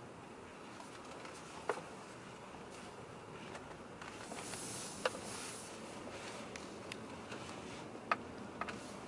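Quiet road and tyre noise inside a moving Audi Q7's cabin, with a few short sharp clicks scattered through it.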